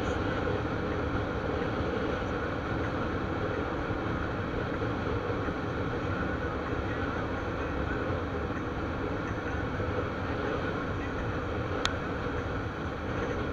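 Motorcycle riding at steady speed: the engine running under a steady rush of wind over the camera. A single short click near the end.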